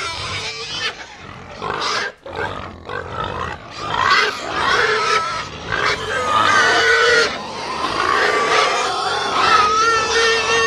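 Pigs screaming and squealing together, a continuous din of overlapping high squeals that grows louder about four seconds in.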